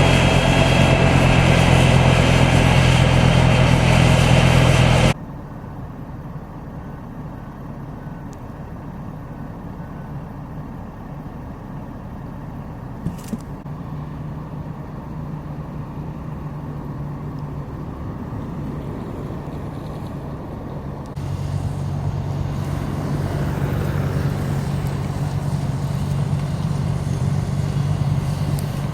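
Motor engines running in three stretches: a loud engine that cuts off abruptly about five seconds in, a quieter steady engine hum through the middle with one sharp click, then a louder engine again for the last several seconds, slowly growing.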